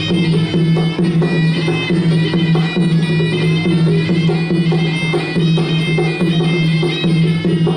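Traditional Kun Khmer ringside fight music: a reedy wind-instrument melody, in the manner of the sralai, over a steady low drone and drums beating a regular rhythm.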